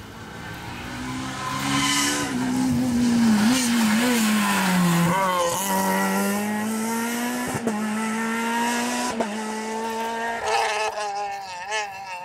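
Rally car engine revving hard, its pitch climbing and dropping with gear changes and lifts, with a couple of sharp cracks from the exhaust.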